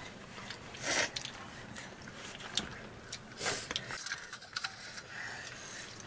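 People eating a meal, with chewing and biting sounds, scattered light clicks and rustles, and two louder rustling bursts, one about a second in and one near the middle.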